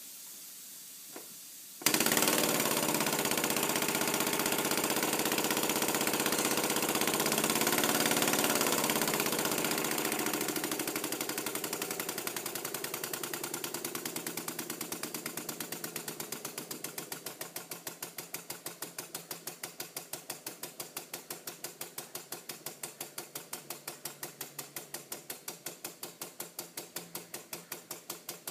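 An engine starts suddenly about two seconds in and runs with a rapid, regular clatter of sharp knocks like hands clapping. The beat slows and becomes more distinct as it settles, ending as an even, rhythmic clapping knock.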